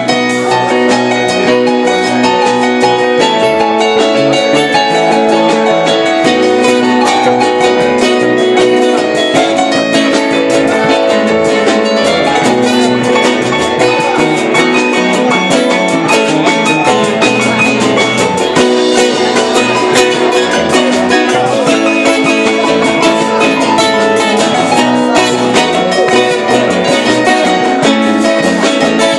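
Live band playing loud music: guitar over a drum kit with steady, regular cymbal and drum hits.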